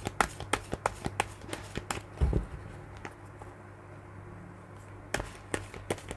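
Tarot cards being shuffled by hand: quick light clicks of the cards slapping together, with a dull thump a little after two seconds, a quieter pause in the middle, and more clicking near the end.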